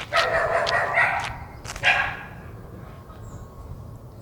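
A dog barking a few times in the first two seconds, then quieter background.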